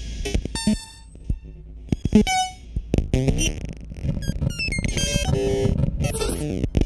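Electronic music from an analog modular synthesizer, its sounds captured and played back by a Max/MSP patch. It is a busy string of plinky-plonky blips, sharp clicks and short tones that step and glide up and down in pitch.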